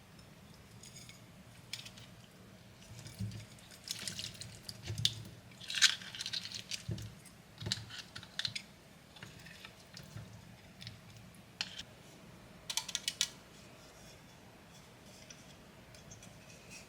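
Close-miked wet crackles and clicks from bamboo shoot papaya salad with crab, coming in scattered irregular bursts with a quick run of clicks a little past the middle.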